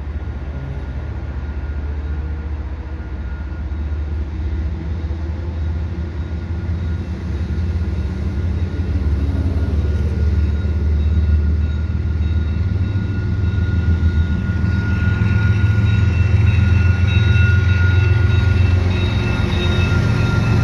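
GE diesel-electric locomotives (an ES44AC and an AC4400CWM) leading a CPKC freight train, their low engine rumble growing steadily louder as the train approaches and reaches the listener near the end.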